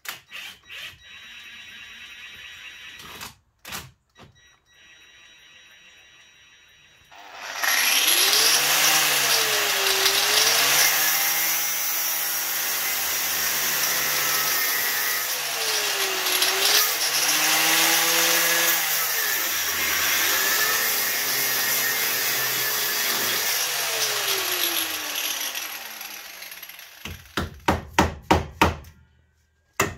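Angle grinder cutting through a steel track rod end. It starts about a quarter of the way in, and its motor note dips and recovers again and again as the disc bites into the metal, then falls away as it winds down. A quick run of sharp knocks follows near the end.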